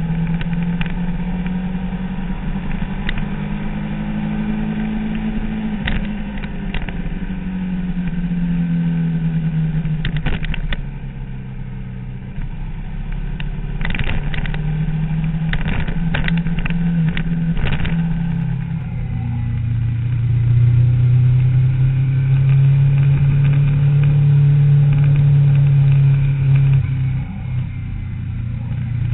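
Sport motorcycle's engine at speed, heard from a camera mounted on the bike: the engine note rises and falls with the throttle, dips briefly about eleven seconds in, then holds a long, louder pull through the last third. Scattered sharp clicks and knocks come between about ten and eighteen seconds in.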